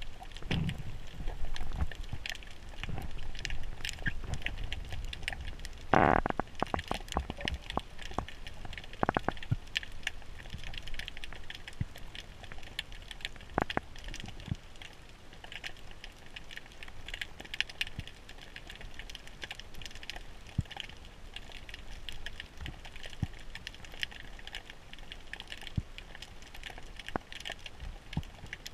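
Underwater reef ambience heard through a camera housing: a constant crackle of small clicks and pops. Low rumbling from water movement comes in the first few seconds, and a louder cluster of knocks about six seconds in.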